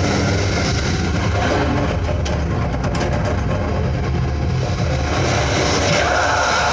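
A film's soundtrack playing loud over IMAX cinema speakers: a steady deep rumble under rushing, noisy sound effects, with a few sharp clicks around the middle.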